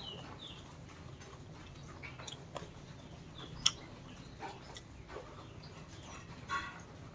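Someone eating chicken biryani with his hands: quiet chewing and mouth sounds, with small clicks as fingers pick chicken out of a steel bowl of gravy. One sharp click comes a little past halfway.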